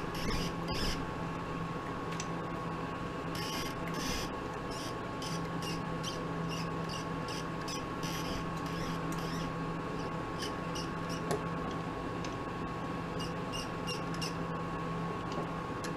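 Mini lathe running steadily with a constant whine and hum, with many short high squeaks coming and going.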